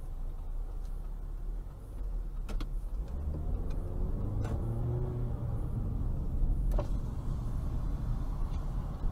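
Car engine and road noise heard from inside the cabin through a dashcam, the engine note rising as the car pulls away about three seconds in. A few light clicks, then a sharper knock about two-thirds of the way through as an SUV crashes into a traffic-light pole ahead.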